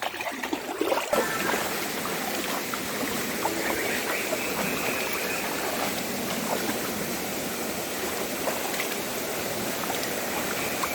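Floodwater rushing and flowing steadily, with no pitch to it; the rush sets in about a second in, after a few short knocks.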